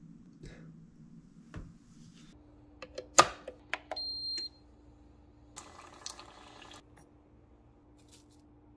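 A run of clicks from a Ninja coffee maker's control panel as its dial is pressed, then a short high electronic beep from the machine. About two seconds later comes a brief rustle of ground coffee being spooned into a paper filter cone, with a low steady hum underneath throughout.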